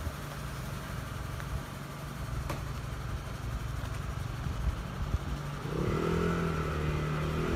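Fire engine's diesel engine running as the truck drives slowly. About six seconds in, the engine note grows louder and fuller as it picks up power.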